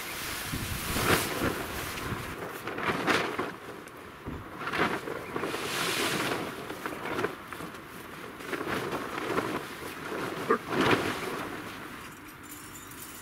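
Plastic and nylon tent groundsheets rustling and crinkling in a run of irregular swishes as they are dragged and handled, quieter near the end.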